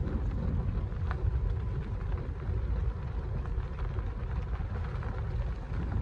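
Motorhome driving on a gravel road: a steady low rumble of engine and tyres on loose stones, with a faint click about a second in.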